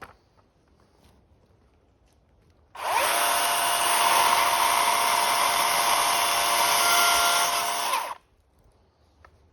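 An electric power tool's motor runs at a steady high speed for about five seconds. It spins up quickly about three seconds in and cuts off sharply, with no idling before or after.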